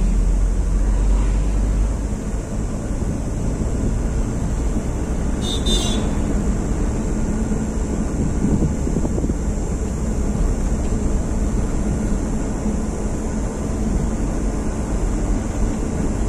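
Car engine and road noise heard inside the cabin while driving, a steady low rumble. A brief high-pitched rasp comes about five and a half seconds in.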